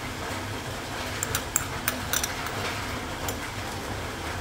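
A metal spoon clicking lightly against a mixing bowl as raw chicken pieces are turned in sweet soy sauce, a handful of clicks clustered in the middle and one more later, over a steady low hum.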